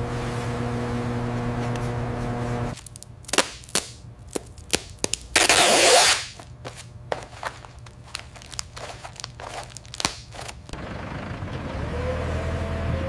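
A steady machine hum with several even tones cuts off suddenly a few seconds in. Then come scattered sharp clicks and knocks, with one louder hissing burst lasting about a second, and a low rumble building up near the end.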